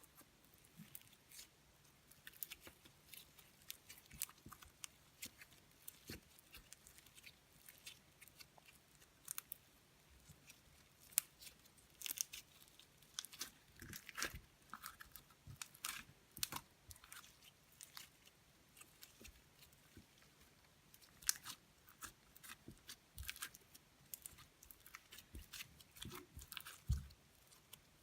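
Slime being squeezed and poked by hand, giving irregular small sticky clicks and pops, several a second, with louder pops here and there.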